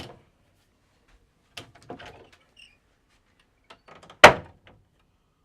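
Closet door being opened: a few light clicks and rattles, then one sharp knock a little after four seconds in.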